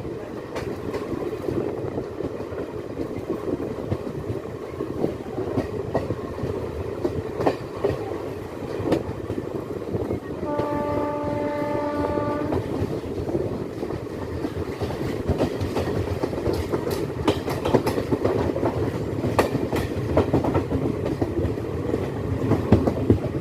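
Passenger train running along the track, heard on board: a steady rumble with scattered clicks of the wheels over rail joints. About ten seconds in, the locomotive horn sounds once, a steady blast lasting about two seconds.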